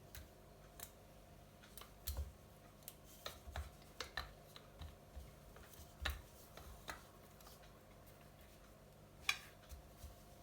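Rolling pin rolling out a potato-stuffed paratha on a board: faint, irregular clicks and soft knocks, with one sharper click near the end.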